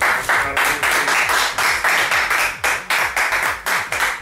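Hands clapping in quick, even claps, about four a second, welcoming the guest just introduced.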